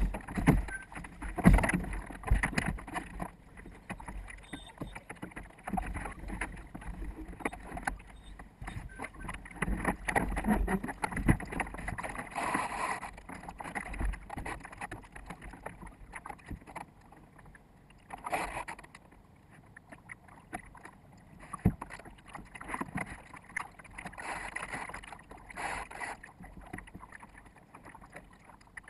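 Water slapping and gurgling against a sailboat's bow right by the microphone, in irregular thumps and splashes that are loudest in the first few seconds. The sound is sped up to four times normal speed.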